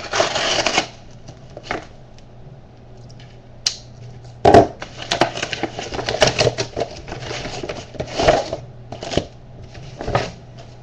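Packaging being opened and handled by hand: irregular rustling, scraping and sharp clicks, with a louder crackle about four and a half seconds in.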